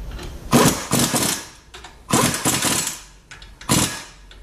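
A handheld power wrench runs in three short bursts of fast rattling, about a second and a half apart, as it runs down and tightens the lower ball joint nuts and bolt on a car's front suspension.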